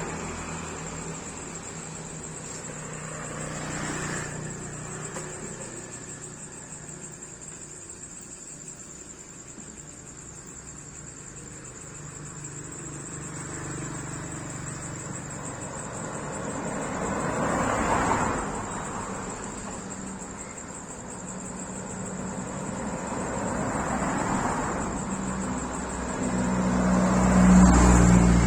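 Road traffic: vehicles passing one after another, each swelling and fading, the loudest and closest near the end with a deep engine hum. A steady high-pitched tone runs underneath throughout.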